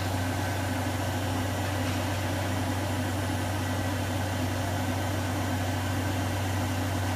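Fadal vertical machining center running with a steady low hum over a faint even hiss.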